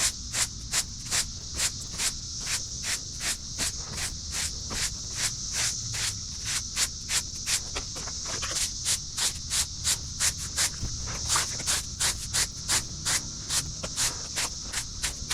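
Quick, regular rubbing or scraping strokes, about three a second, over a steady high-pitched insect drone.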